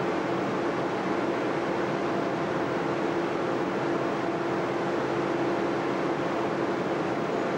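Steady noise of the forced-air cooling blowers and ducting of high-power Marconi shortwave broadcast transmitters running, with a constant hum in it.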